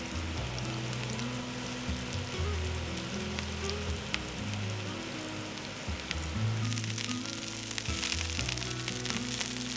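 Meat-filled eggplant rolls frying in sesame oil in a frying pan: a steady sizzle with crackles of spattering oil, getting louder about two-thirds of the way through. Background music with held low notes plays underneath.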